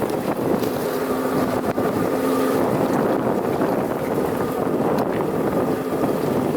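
GAZ-66 truck's V8 engine running as the truck drives, with a faint droning tone that comes and goes, under heavy wind buffeting on the microphone.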